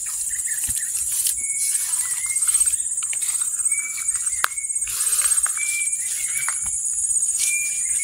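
Steady high-pitched insect chorus of crickets, with a bird's short whistled notes repeated about eight times and a few sharp ticks.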